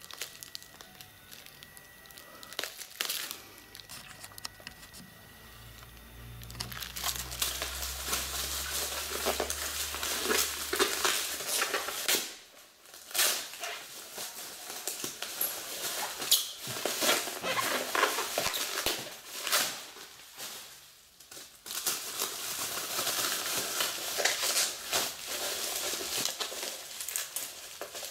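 Bubble wrap and plastic packaging crinkling and tearing as a parcel is unwrapped by hand, with a steady run of crackles. It is quieter for the first few seconds, louder from about six seconds in, and pauses briefly twice.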